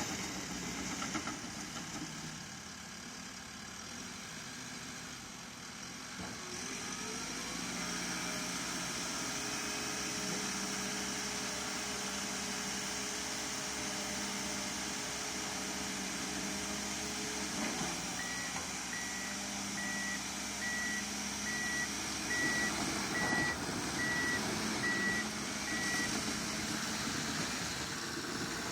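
Crawler dozer diesel engine running, shifting in pitch, with a backup alarm beeping steadily during the second half as the machine reverses.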